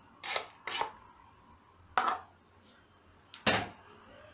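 Kitchen knife scraping chopped onion off a wooden cutting board into a metal tray, two quick swipes, then two sharp knocks as the board and knife are set down, the second and loudest about three and a half seconds in.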